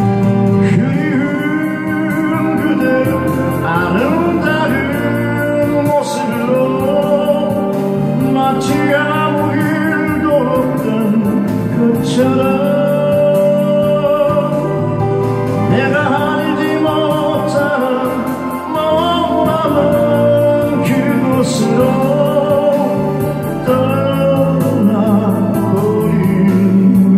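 A man singing a slow Korean folk-pop ballad, strumming an acoustic guitar over fuller musical accompaniment.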